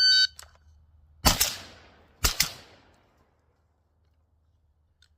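A short electronic beep, then an AR-15 rifle (Ridgeline RD15) fired in two quick double taps: two shots in quick succession, a pause of about a second, and two more, each ringing out briefly.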